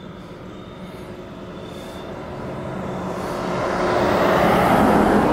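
A car driving past, its engine and tyre noise growing steadily louder over a few seconds to a peak near the end.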